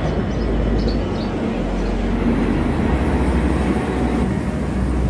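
Steady low rumble of trains standing at a railway station, with a few short bird chirps in the first second.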